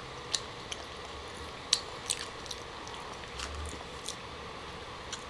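Close-miked chewing of a green grape: soft, wet mouth sounds of biting and chewing, with a handful of sharp, irregularly spaced clicks.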